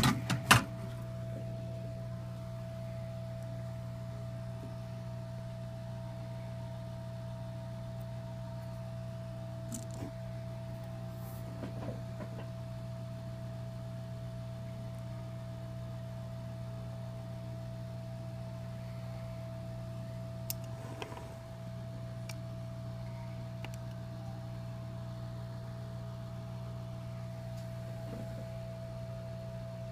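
Steady low hum with a constant higher tone running under it, with a few sharp clicks at the very start and occasional faint ticks.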